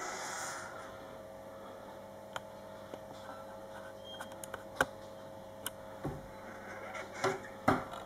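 Kitchen cupboard doors and their contents being handled: scattered light clicks and knocks, with two louder knocks near the end, over a steady faint hum.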